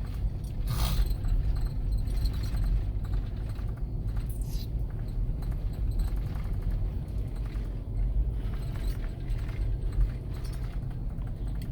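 Car driving on an unpaved dirt road: a steady low road rumble with scattered light rattles and knocks.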